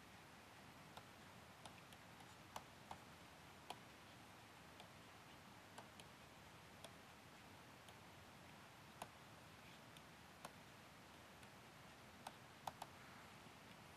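Near silence with faint, irregular clicks of a stylus tapping a tablet screen during handwriting.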